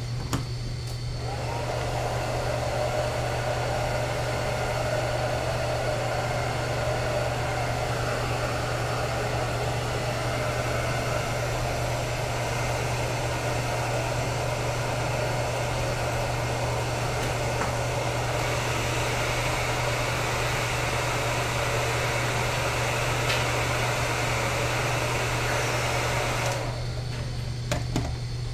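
Liquid helium hissing as it flows through the transfer line into the CPU cooling pot. The steady hiss starts about a second in with a brief rising tone and cuts off suddenly near the end, over a constant low hum.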